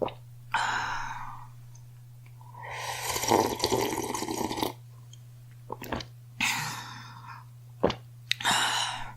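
A girl's breathing: short airy breaths with a longer, rough, uneven breath about three seconds in, and a few faint clicks.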